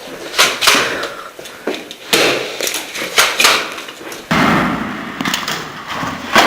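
A run of irregular sharp knocks and bangs, about a dozen, with scuffing and rustling in between.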